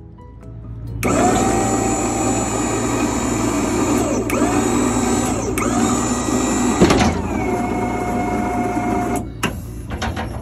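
Electric hydraulic pump motor of a Maxon box-truck liftgate running to drive the gate. It starts about a second in, whines steadily with a few brief dips in pitch, gives a sharp clunk about seven seconds in, and cuts off about nine seconds in.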